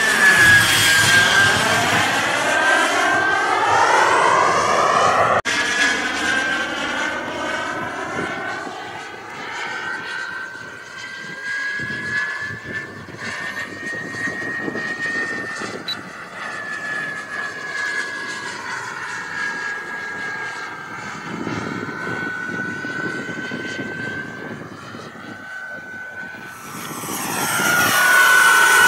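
Kingtech K80F turbine of a radio-controlled model jet in flight: a steady high-pitched whine over a rushing hiss. It is loudest as the jet passes close in the first few seconds and again near the end, and fainter while it flies farther off in between.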